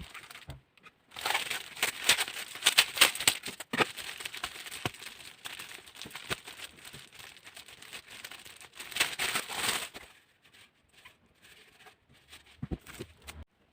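Packaging being handled and unwrapped: irregular rustling and crinkling with small clicks and knocks, in loud spells, quieter for the last few seconds.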